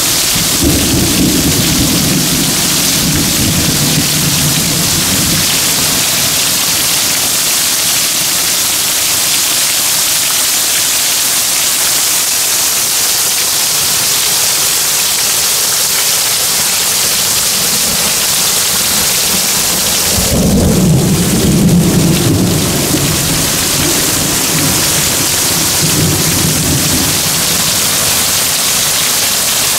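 Heavy thunderstorm rain pouring down steadily, with rolls of thunder rumbling underneath: one in the first few seconds, a louder one about two-thirds of the way through, and a short one near the end.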